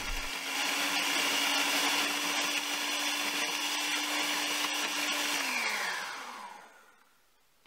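Electric hand mixer running steadily with its twin beaters in cake batter in a plastic bowl. A little after five seconds it is switched off, and its whine falls in pitch and dies away.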